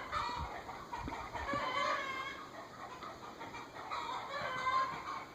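A chicken clucking in several short bouts, with a few faint low thumps near the start.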